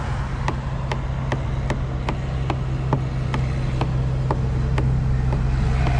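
Farmtrac Champion tractor's diesel engine running steadily as the tractor drives along, growing slightly louder, with a light regular ticking about two and a half times a second.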